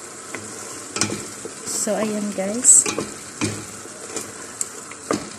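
A wooden spatula stirring a thick masala in a stainless steel pot. The sauce sizzles steadily, with several sharp scrapes and knocks of the spatula against the pot.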